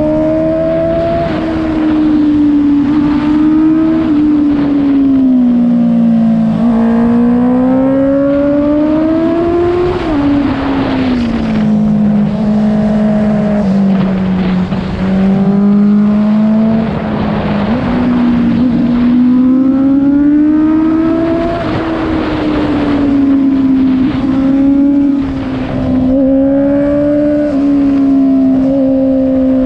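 Honda CBR650F's inline-four engine running through an Akrapovic full-system exhaust with the dB killer removed. The revs rise and fall steadily, with a sudden drop about ten seconds in, as when a gear is changed.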